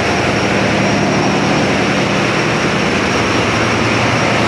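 Loud, steady din of a cargo ship's engine room with the engines running, a constant low drone under a dense mechanical noise and no change throughout.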